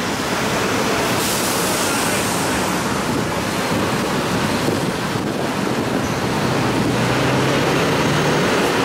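Busy city road traffic passing: a steady wash of tyre and engine noise from cars, vans and trucks. A low engine hum from a heavy truck rises over it in the last couple of seconds.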